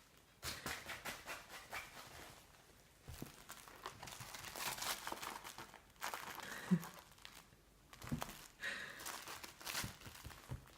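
Playing kittens scrabbling and scratching, with rustling and crinkling in uneven bursts and short pauses between them.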